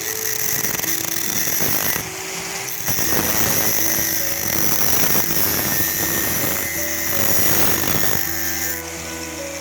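An electric power tool running under load, its sound dipping briefly about two seconds in and again near the end.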